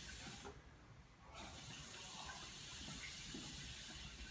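A silenced acrylic hookah being drawn on: a soft, steady airy hiss starting about a second and a half in. The stainless-steel silencer damps the usual bubbling of the water.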